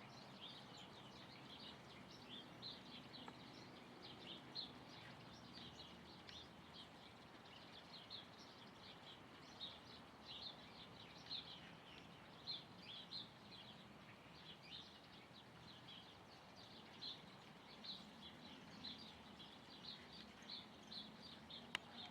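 Small birds chirping: a steady stream of short, high chirps, several a second, heard faintly over a low background hum.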